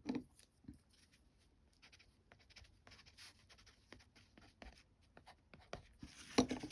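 Water-soluble wax pastel crayon scratching in short strokes across very rough cotton rag paper, faint and growing louder near the end.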